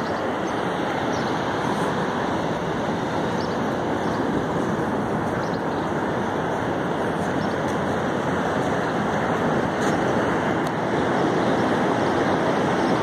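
Ocean surf washing on a sandy beach, a steady rush that grows a little louder near the end.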